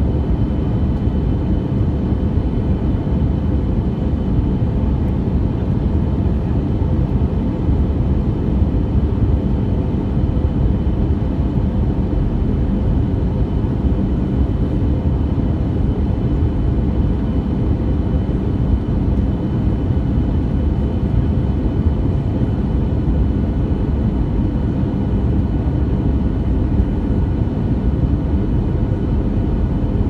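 Steady cabin noise of an Airbus A320 in flight: a constant rushing drone of airflow and engines, with a faint steady whine above it.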